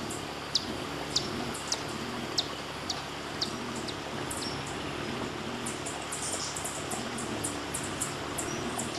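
A bird repeating a sharp, high, down-slurred chip about twice a second, with a quicker run of higher chips near the end, over a steady background hiss.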